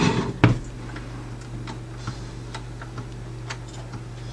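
Push-button power switch on the front panel of a Radiotekhnika U-101 Stereo amplifier being pressed over and over to test it, after its mounting was moved closer to the key. There are two louder clacks in the first half-second, then a run of light, uneven clicks.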